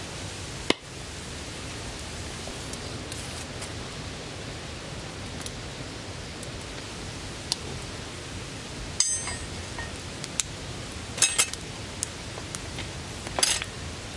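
Wood fire burning with a steady hiss and a few small crackles. In the second half come several metallic clinks with a brief ring, the loudest near the end, as a thick steel griddle plate is set onto the fire stand's metal grill.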